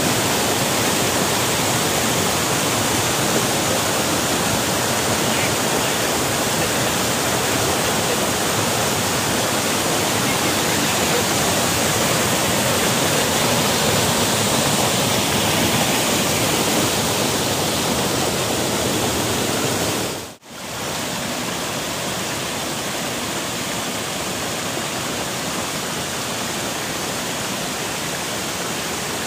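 Steady, loud rush of white water as a waterfall stream cascades over boulders. About twenty seconds in it cuts off for a moment, then resumes a little quieter.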